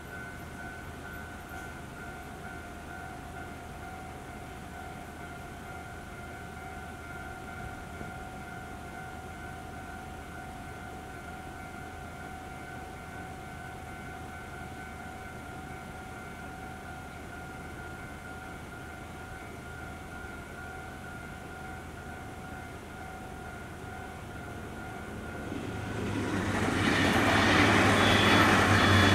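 Level-crossing warning alarm ringing steadily in a repeating tone. About 25 seconds in, a TRA DR3100 Tze-Chiang diesel multiple unit arrives and runs past, and the noise of its diesel engines and wheels on the rails swells and drowns out the alarm.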